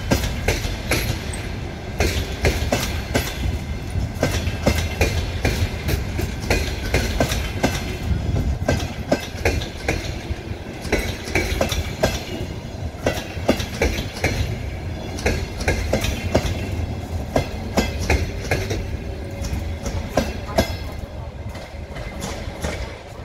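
Departing passenger train's coaches rolling past, their wheels clattering over rail joints with many sharp irregular clicks over a steady low rumble. The sound eases off near the end as the last coach draws away.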